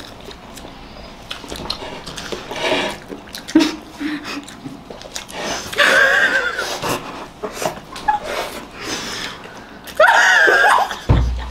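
Young women laughing, with short high-pitched squealing bursts about halfway through and again near the end, and wet smacking mouth noises from eating cake face-first in between.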